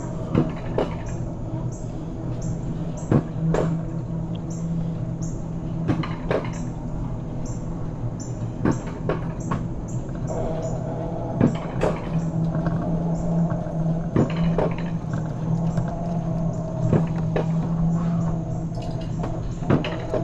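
Alpine coaster sled being hauled up the lift section on its rails: a steady mechanical hum and drone, with irregular sharp clacks and knocks from the sled rattling on the track.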